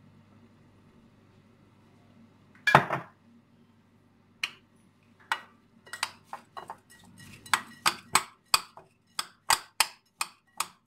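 Metal spoon knocking and clinking against a ceramic bowl while stirring a wet rice stuffing: one loud knock about three seconds in, then sharp clinks that come faster, about two a second, towards the end.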